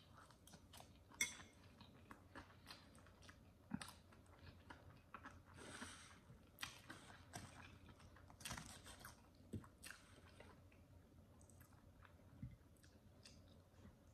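Quiet close-miked chewing of a mouthful of pancake, with scattered wet mouth clicks and smacks and a few louder crunchy bites.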